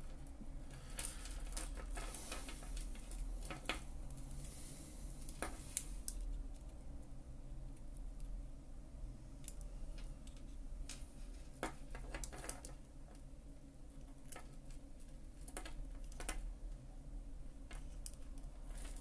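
Light, irregular small metallic clicks and taps as chain-nose jewellery pliers grip and bend the wire hook on a bead of a costume-jewellery bracelet, closing the deformed link.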